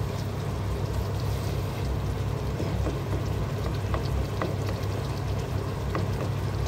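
Shrimp and tomato sizzling in a pot while a wooden spoon stirs them, with a few light clicks of the spoon against the pot, over a steady low hum.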